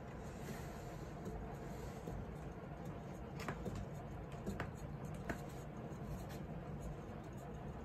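Syrian hamster running in a clear plastic exercise wheel: a steady scratchy rumble of the turning wheel and the patter of its feet. Three sharp clicks come near the middle.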